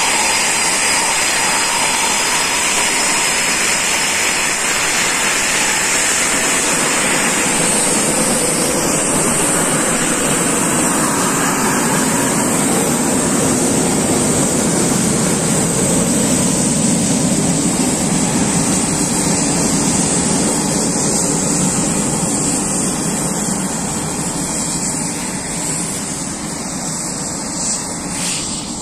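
Eurofighter Typhoon fighter jet taxiing past, its twin EJ200 turbofan engines giving a loud, steady high-pitched whine over a rushing roar. The sound deepens midway as the jet passes and gets quieter over the last few seconds as it moves away.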